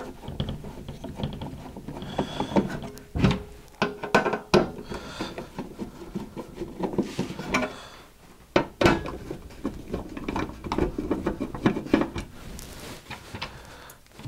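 Screws being turned out of a sheet-metal equipment case by screwdriver and by hand, with irregular clicks, taps and scraping as the screws and case are handled.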